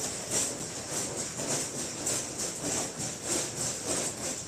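Paper raffle tickets being shaken in a cloth bag, a rhythmic rustling swish at about two to three shakes a second.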